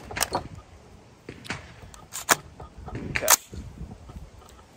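AR-15 rifle being handled as it is readied to fire: a string of sharp metallic clicks and clacks, the loudest about two seconds and three seconds in.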